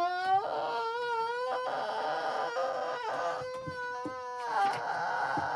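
A high-pitched human voice holding a long, wavering 'ahhh' with a few brief breaks: the drawn-out wind-up to a pretend elephant sneeze, acted out while reading aloud.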